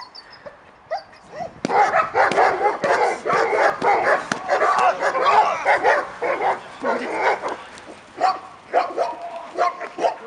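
German shepherd barking and yelping excitedly during bite-work agitation, after a few faint whines. The barking starts about two seconds in as a fast, unbroken volley and thins to separate barks and yips after about seven seconds.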